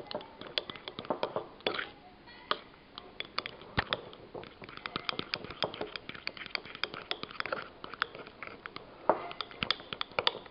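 A spoon stirring batter in a mixing bowl, with a rapid, irregular run of light clicks and taps against the bowl.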